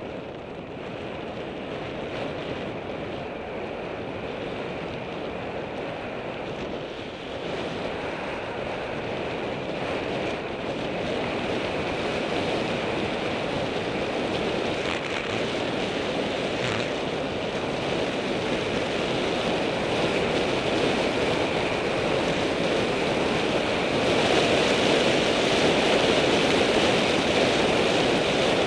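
Steady rush of wind over the microphone during a fast downhill run on a paved road, with rolling noise on the rough asphalt, growing louder as the speed builds.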